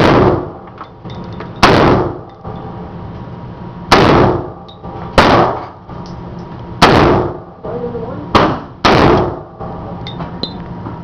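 AR-15 rifle firing single shots at an irregular pace, about seven in all, each a sharp crack with a short echoing tail.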